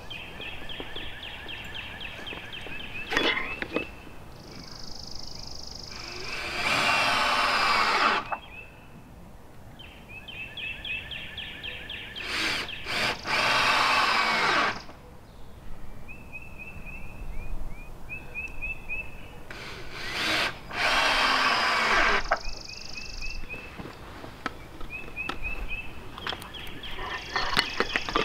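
Cordless drill driving screws into wooden fence rails, in three runs of about two seconds each.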